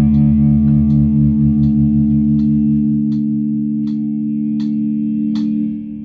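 Electric guitar through distortion, a Stratocaster-style guitar, letting a chord ring out and sustain, then fading near the end. A light tick sounds about every three-quarters of a second under it.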